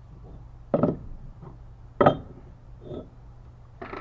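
Cut wooden boards knocking together as they are handled and set down: two sharp knocks about a second apart, then fainter ones.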